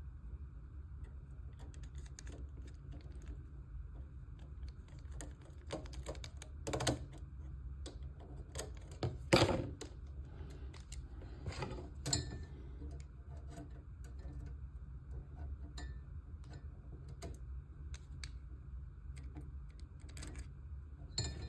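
Scattered light clicks and taps of small model-kit frame pieces and screws being handled and fitted by hand, with a few louder knocks about 7, 9½ and 12 seconds in, over a low steady hum.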